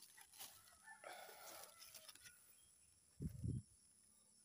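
Near silence: faint rustling about a second in, then a short low thud about three seconds in.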